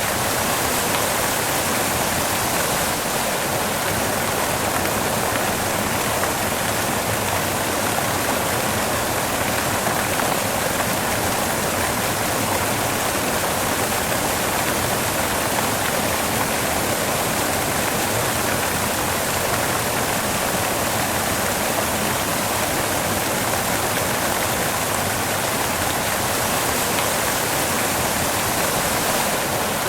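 Steady white noise: an even, unchanging hiss with no rise, fall or breaks.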